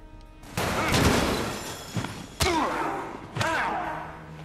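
Movie fight sound effects: a sudden loud crash about half a second in, then heavy hits and slams, two of them about a second apart, with men grunting and shouting.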